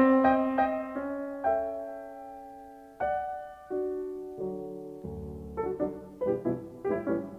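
Background music: piano notes with a slow melody, the notes quickening near the end.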